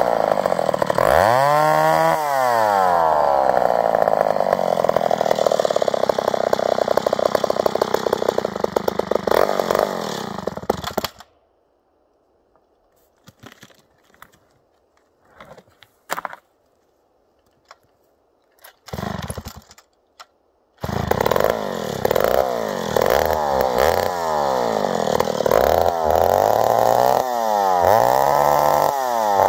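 McCulloch Super 55 two-stroke chainsaw, about 80 cc, revving up and then running steadily under load as it cuts through grand fir, its pitch sagging slightly before it cuts off about eleven seconds in. After about ten seconds of near silence with a few faint knocks, the saw is heard again, revved up and down in quick blips.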